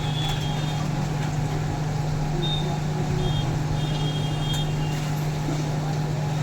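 Steady low hum of an electric fan motor running without change, with a few faint high-pitched chirps now and then.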